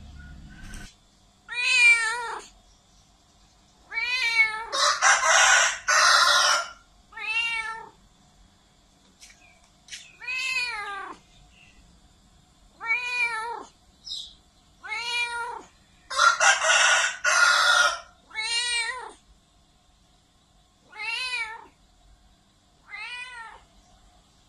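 Domestic cat meowing loudly over and over: about a dozen drawn-out meows, each rising then falling in pitch, with quiet gaps of a second or two between them. Two stretches, about four seconds in and again about sixteen seconds in, are louder and rougher.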